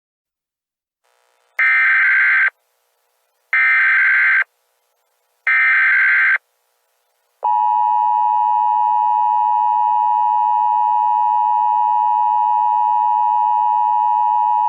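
Emergency Alert System (EAS) SAME header: three short bursts of warbling data tones about two seconds apart. About halfway through, the EAS two-tone attention signal begins and holds steady, marking the start of an emergency alert.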